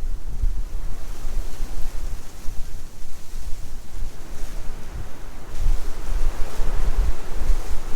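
Blizzard wind blowing in gusts, with low, uneven buffeting of the wind on the microphone; a stronger gust builds about halfway through.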